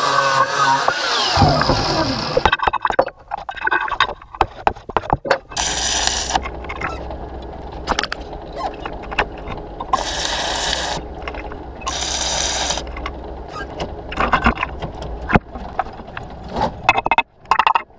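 Angle grinder cutting steel, winding down within the first second or two. Then the irregular crackle and sizzle of electric arc welding on a steel channel, in several bursts with pops in between.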